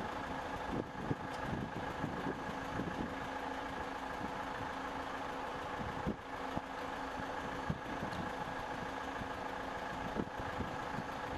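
Machinery running steadily in a precast concrete factory: a hum with a few level tones and scattered short knocks and clatters.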